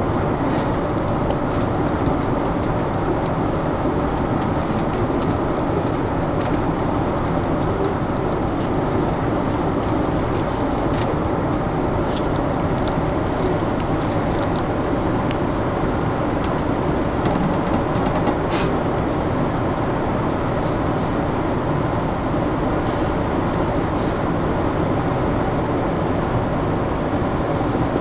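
Steady hum and rumble inside the carriage of a JR Tokaido Line commuter train standing halted after an emergency stop button was pressed, with a few faint ticks.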